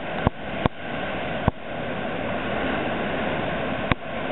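Steady rushing noise of surf on a sandy beach, with wind on the microphone, broken by four sharp clicks.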